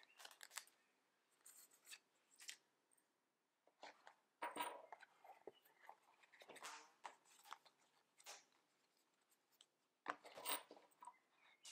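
Faint, scattered rustles and scrapes of hands handling a leather notebook cover on a wooden table, in short strokes with pauses between.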